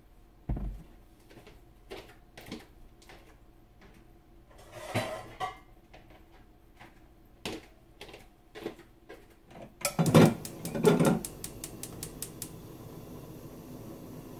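Kitchen handling on a gas range: light knocks and clatter as a cooking-oil bottle and a frying pan are moved and set down. About ten seconds in the pan thumps onto the grate and the stove's igniter clicks rapidly for about two seconds as the burner lights, leaving a faint steady hiss of the gas flame.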